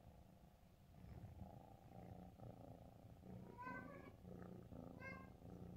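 Domestic cat purring faintly and close, a soft pulsing rumble, with two brief high cat calls in the second half.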